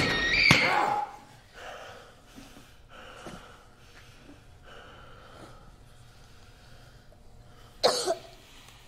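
A woman's high-pitched cry that breaks off about a second in, followed by faint whimpering sobs, and a sudden loud gasping cough near the end.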